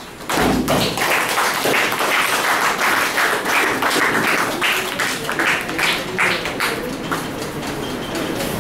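Audience clapping, with crowd voices mixed in.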